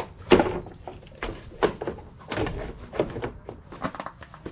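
Irregular knocks, clicks and scrapes of broken doorway trim being worked and pulled away inside a cargo van, with a sharp knock just after the start.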